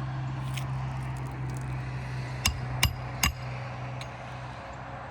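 Three quick hammer strikes, about a third of a second apart, during a roof shingle repair, over a steady low hum.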